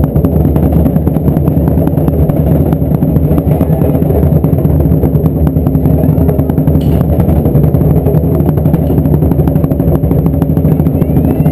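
Taiko drums beaten rapidly by a group, many overlapping strikes merging into a loud, dense low rumble.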